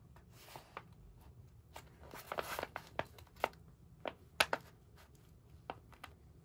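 Stiff silver paper rustling and crackling as it is handled and pressed flat against a wall by hand. A longer rasping rustle comes about two seconds in, followed by a string of sharp light crackles and taps.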